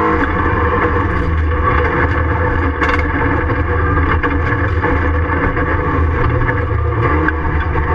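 Ford Fiesta Mk7 rallycross car's engine running hard under load, heard from inside the stripped, roll-caged cabin, mixed with loud tyre and road noise. A few sharp clicks and knocks come about three and four seconds in.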